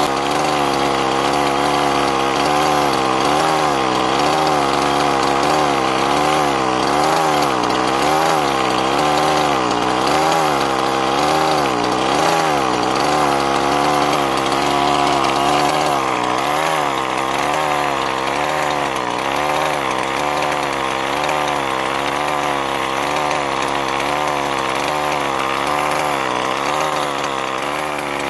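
Losi MTXL's two-stroke gas engine idling during its break-in heat cycles, the note wavering up and down about once a second in an uneven idle.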